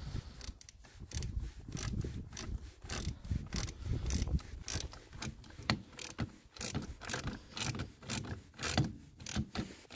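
Socket ratchet wrench with a 13 mm socket clicking through repeated back-and-forth strokes as it tightens the negative terminal clamp on a generator battery.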